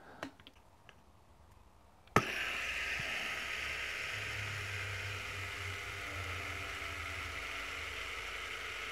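Noblespin Nebulous fidget spinner, with ceramic bearings in steel cages, flicked into a spin on a metal block with a sharp click about two seconds in, then a steady whirring hum as it spins. It wobbles slightly and shifts a little on the surface.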